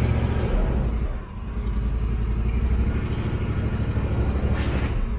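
Argo 6x6 amphibious ATV engine revving as the vehicle drives through snow with its wheels spinning. The engine sound eases about a second in and builds again, with a short burst of hiss near the end.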